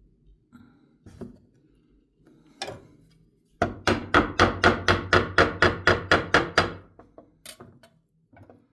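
A rotisserie spit being knocked into place through a chicken: a few single knocks, then a fast run of about fifteen hammer-like strikes, four or five a second for about three seconds, then a couple more knocks.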